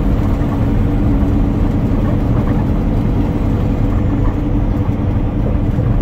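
Semi truck's diesel engine and road noise heard inside the cab while cruising on the highway: a steady low drone.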